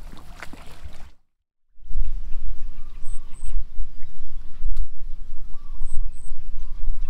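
Wind buffeting the microphone with a loud, uneven low rumble, while a bird gives two pairs of short, very high chirps. The sound drops out briefly about a second in at an edit cut.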